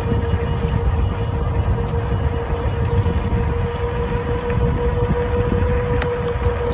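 Wind buffeting the microphone of a moving e-bike, over which the bike's electric motor whines at one steady pitch.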